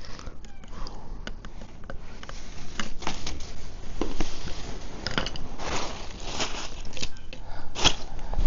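Chainsaw bar and chain being adjusted and tightened by hand: scattered small metallic clicks and scrapes, with a sharper click near the end.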